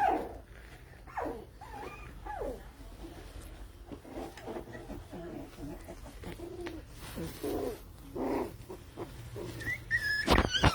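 A litter of young puppies whining and yipping in short squeaky cries, several falling in pitch, as they play and wrestle. A sharp knock and a high wavering squeal come near the end.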